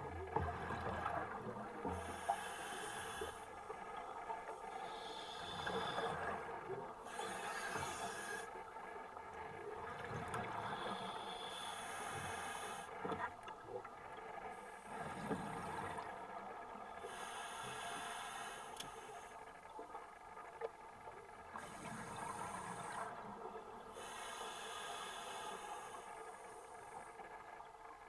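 Scuba diver breathing through a regulator underwater: a rush of breath and bubbles that comes back in a regular cycle about every two to three seconds.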